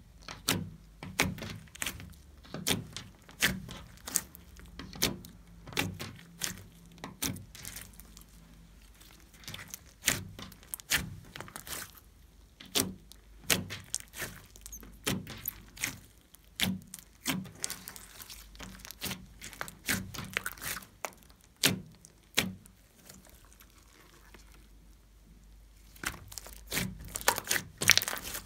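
Hands kneading and squeezing a large lump of soft slime, making a run of sharp wet clicks and pops, about one or two a second. There is a quieter spell about three-quarters of the way through, then a quick cluster of pops near the end.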